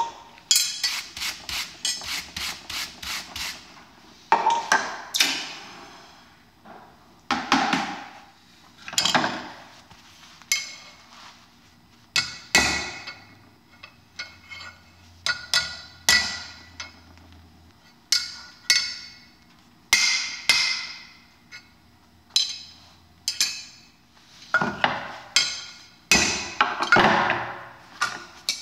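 Hand hammer striking red-hot steel rod on an anvil, bending and shaping it over the horn. It opens with a quick run of light strikes, about three or four a second, then goes on in separate blows and short flurries, each ringing briefly.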